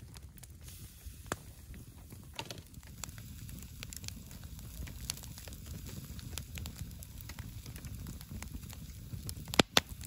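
Wood campfire crackling with scattered small pops over a steady low rumble. Two louder sharp clicks come near the end.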